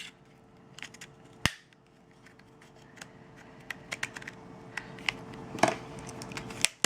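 Irregular small plastic clicks and snaps as a phone's plastic back cover is pried off around its edges, its clips letting go one by one; one sharper snap about a second and a half in, then a busier run of clicks.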